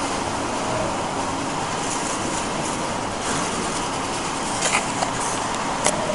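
Steady rushing background noise, with a few light rustles of casket lining fabric being handled and a sharp click near the end.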